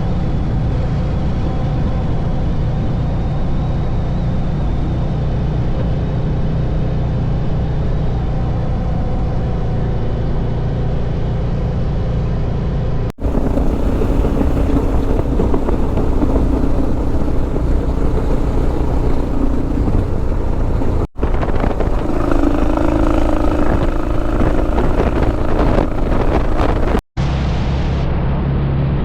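Suzuki DR650's single-cylinder engine running steadily under way, heard from the moving motorcycle. The sound breaks off abruptly three times at clip cuts, and the engine's pitch shifts after each break.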